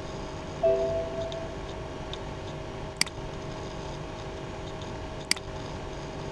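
Two sharp computer mouse clicks, about two seconds apart, over a steady background hum. A short tone sounds for under a second near the start.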